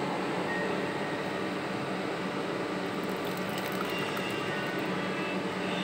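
Hot milk tea poured from a steel saucepan through a mesh tea strainer into a cup, over a steady background hum.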